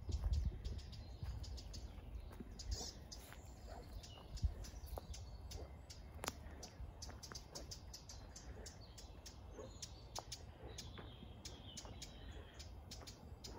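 Woodland birds singing: many short high chirps, and a longer warbling phrase about eleven seconds in. Under them is a low rumble that is strongest in the first second.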